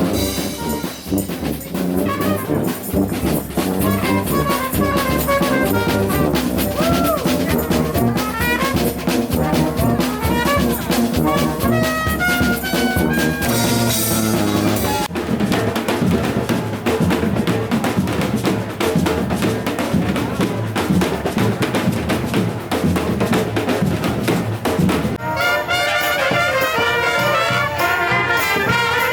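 Street brass band playing: trumpets and trombones over drums, with a stepped climb of notes about halfway through. The music jumps abruptly to a different passage twice, about halfway through and near the end.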